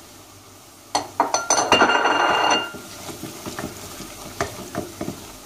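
Diced raw chicken frying in hot oil with onion and carrot in a stainless steel pot, stirred with a wooden spoon. About a second in there is a loud burst of sizzling and spoon knocks on the metal pot with a brief ringing, which settles after about a second and a half into quieter, repeated stirring taps and scrapes.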